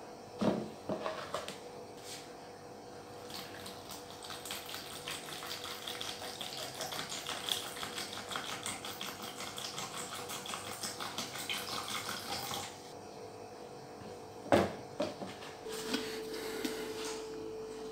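Vinegar pouring from a bottle into a plastic cup, splashing steadily for about ten seconds. Sharp knocks sound about half a second in and again near the end.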